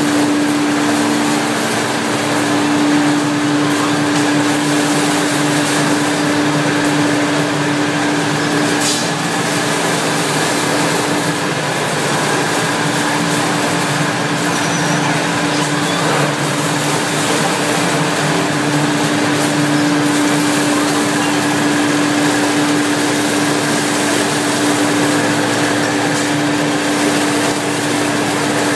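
Machinery running steadily: an even mechanical din with a constant low hum.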